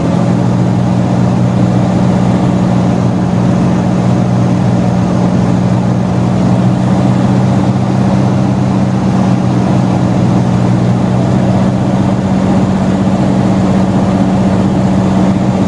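Cirrus SR20's four-cylinder piston engine and propeller heard from inside the cabin, a steady drone that holds one pitch throughout at approach power on final approach.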